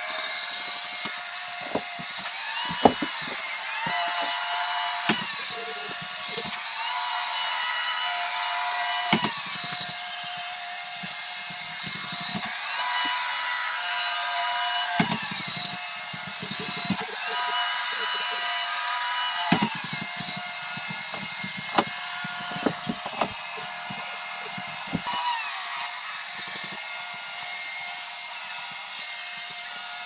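ECOVACS DEEBOT N7 robot vacuum running, its sound sped up fourfold. A whirring motor pitch steps up and back down every few seconds, with scattered sharp clicks and knocks.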